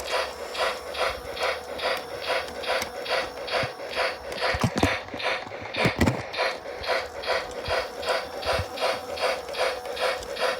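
Battery-powered Lionel G-gauge Polar Express toy train running slowly under remote control, giving an even mechanical pulsing about four times a second over a constant hum, with a few louder knocks around the middle.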